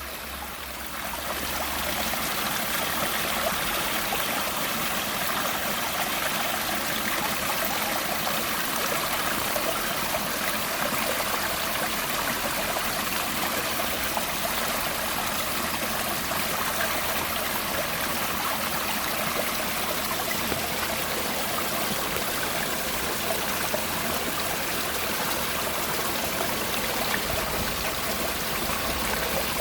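Mountain stream flowing with a steady, even rush of water, fading in over the first second.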